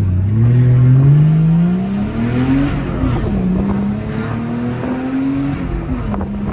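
Turbocharged Toyota 1G-FE straight-six of a Lexus IS200, with a straight-piped 2.5-inch exhaust, accelerating through the gears, heard from inside the cabin. The engine note climbs for nearly three seconds, drops at an upshift, climbs again and drops at a second shift near the end, then holds steady.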